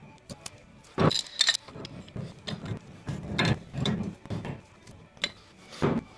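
Metal parts clinking and knocking as they are handled during assembly of a fuel transfer pump kit: two sharp ringing clinks about a second in, then a run of softer knocks and rattles, and one more knock near the end.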